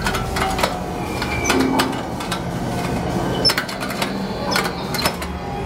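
Haunted attraction's background sound effects: irregular mechanical clattering and clicks over a low steady hum.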